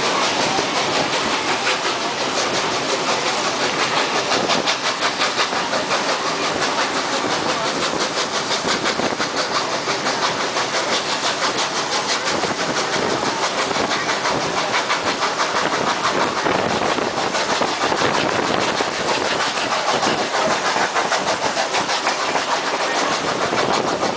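Vintage passenger train running along the track, heard from an open carriage window: steady wheel-on-rail rumble with a continuous fast clatter.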